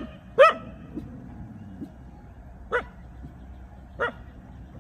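A dog barking: short, sharp barks, two in quick succession at the start, then one near the middle and one near the end.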